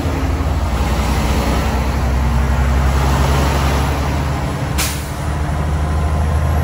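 Semi-truck engine running at low speed, heard from inside the cab as a steady low drone over road noise. About five seconds in comes one brief, sharp hiss.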